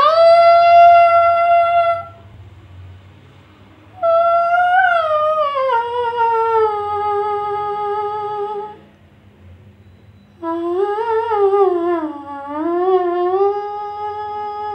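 A woman humming three long, slow wordless phrases, each sliding up into a held note, with the second falling away and the third wavering. This is the opening vocal line before the lyrics of a Kannada film song.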